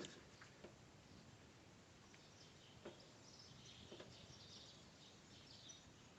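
Near silence: faint background with a few soft clicks and faint high chirps.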